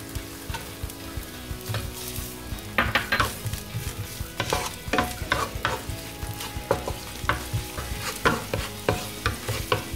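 Chopped garlic sizzling in hot oil in a nonstick frying pan, with a wooden spatula scraping and tapping the pan in irregular strokes as it is stirred, more busily from about three seconds in.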